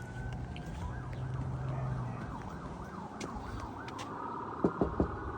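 Emergency vehicle siren, its pitch rapidly wavering up and down, then settling into a steadier held tone about four seconds in.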